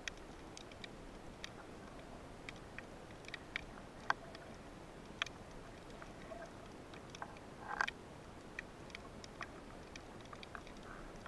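Underwater reef ambience recorded by a camera in its housing: a faint steady hiss with scattered, irregular sharp clicks and a short crackle about eight seconds in.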